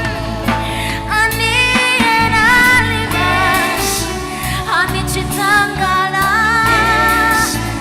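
Live gospel band music: a singer holding long, wavering notes over keyboard, bass and drums.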